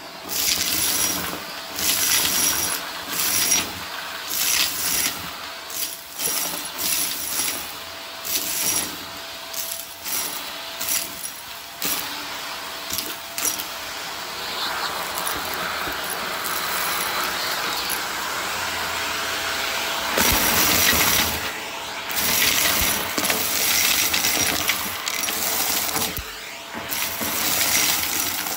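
Vacuum cleaner running and picking up small hard debris from a test mess, which clatters and rattles through it in repeated short bursts, with a faint steady motor tone underneath.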